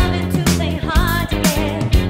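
Band playing a disco-funk dance song: a woman's lead vocal over bass guitar, electric guitar and drums, with a steady beat of about two hits a second.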